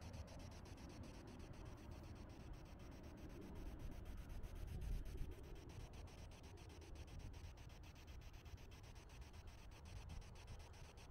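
Near silence: a faint low rumble with light rubbing noise, swelling slightly about four to five seconds in.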